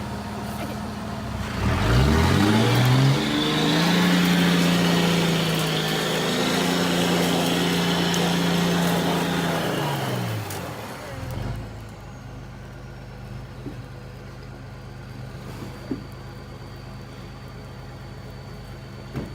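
Truck engine revving up hard and held at high revs for several seconds over a rushing noise, while the truck is stuck in mud, then dropping back to a steady idle about ten seconds in. A single sharp click comes near the end.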